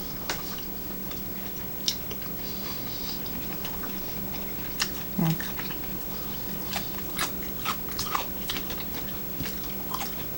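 Close-up chewing with scattered crisp crunches from mouthfuls of crunchy kelp noodles and lotus root.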